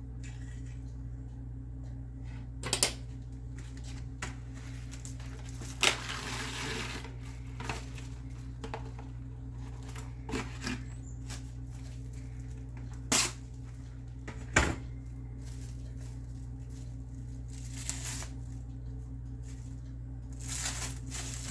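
Plastic wrap being handled and fitted over a bowl: a few sharp knocks and two short rustles, over a steady low electrical hum.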